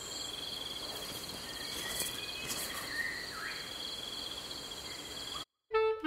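Forest insect chorus: several steady high-pitched drones, one of them pulsing, with a few faint bird chirps in the middle. It cuts off suddenly just before the end.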